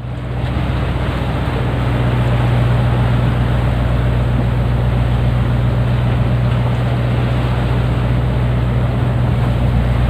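Longline tuna boat's engine running with a steady low hum, with sea water rushing along the hull; it fades in over the first couple of seconds.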